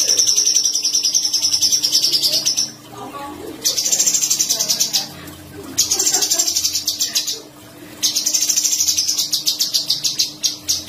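Caged cucak cungkok giving four bursts of fast, high, rasping trilled notes, each one to three seconds long, with short pauses between: the sharp rolling 'besetan' call prized in contest birds.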